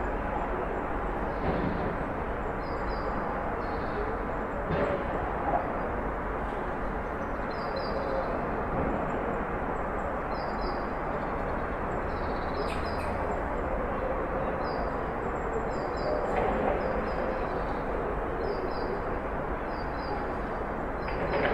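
Backyard ambience: a steady low hiss and rumble of background noise, over which a small bird chirps in quick high pairs and triplets every couple of seconds.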